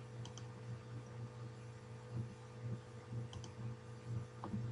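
Computer mouse clicking a couple of times, each a quick press-and-release, over a steady low electrical hum from the recording microphone.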